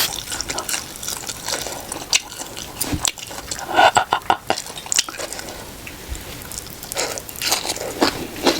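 Close-miked eating: chewing and wet mouth clicks, with a few brief louder bursts about four seconds in and again near the end.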